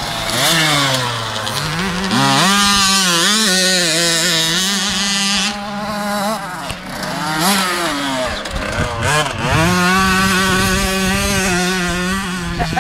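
Two-stroke motocross bikes racing past, engines revving high and falling back as the riders work the throttle and shift gears. The pitch drops, climbs and holds several times.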